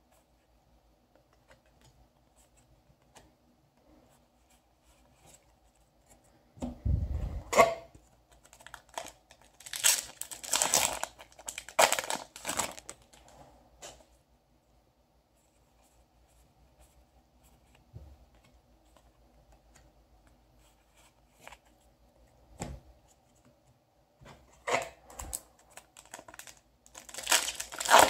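Foil Yu-Gi-Oh! booster pack wrappers being torn open and crinkled, in loud bursts about seven seconds in, again around ten to thirteen seconds, and near the end. Between them, quieter rustling and small ticks of trading cards being handled.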